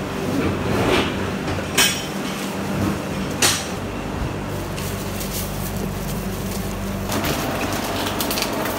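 A steady machinery hum runs under a few sharp knocks and clatters, one about two seconds in and another about three and a half seconds in, with more near the end. The hum grows fuller about seven seconds in.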